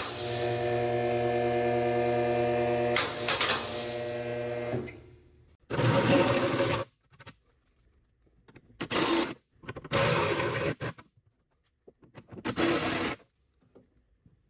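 A cordless power tool motor runs steadily for about five seconds, then a cordless driver runs in the fuel-tank strap bolts in four short bursts.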